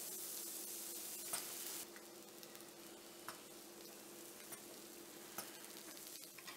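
Faint sizzling of pulppang batter cooking in a hot cast-iron mold pan, with a few soft clicks; the hiss drops lower about two seconds in.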